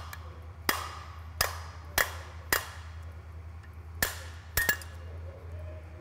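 Light taps of a copper mallet on a nut fitted to the end of a Honda Camino PA50 moped crankshaft, knocking the crankshaft out of its crankcase half. There are about seven sharp taps at uneven spacing, two of them close together near the end, each with a brief metallic ring.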